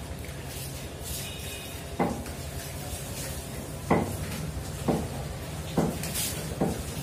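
Meat cleaver chopping chicken on a thick wooden log chopping block: five sharp chops, roughly a second apart from about two seconds in, over a steady low hum.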